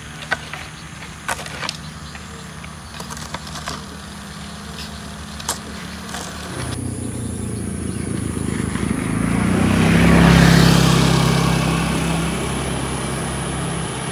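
A small motorcycle passing close by on a village lane: its engine grows louder, peaks about ten seconds in and fades away. Before it comes in, only scattered light clicks over a low hum.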